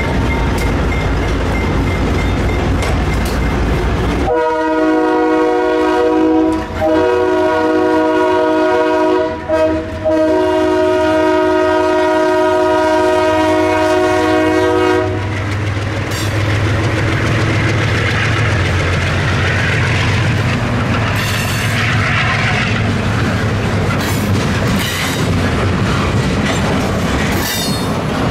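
GE B23-7 diesel locomotive's 12-cylinder engine rumbling as it passes close by. About four seconds in, its Leslie three-chime air horn sounds in three blasts with brief breaks, the last held about five seconds. After the horn, the rumble continues under the rolling of freight cars over the rail joints, with a few clanks.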